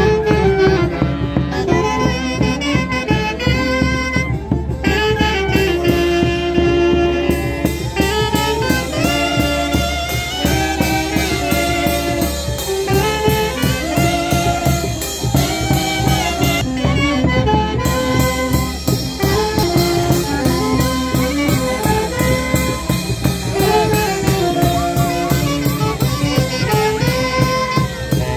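A live street band led by saxophones plays a lively dance tune: several wind instruments carry the melody over a steady drum beat.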